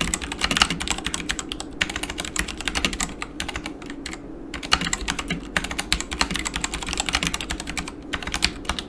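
Typing on a Yunzii KC84 mechanical keyboard with Gateron Black linear switches: a fast, continuous run of keystroke clacks that breaks off briefly around the middle and then resumes.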